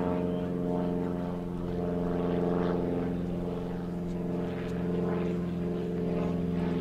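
Super Chipmunk aerobatic plane's piston engine and propeller heard from the ground as a steady, distant drone, swelling slightly a couple of times as it flies overhead.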